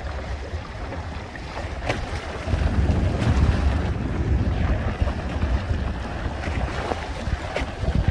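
Wind buffeting the microphone over water rushing and splashing along the hull of a Hobie Tandem Island sailing kayak under sail in choppy sea. The wind rumble is heaviest about two and a half to four seconds in, with a few separate splashes.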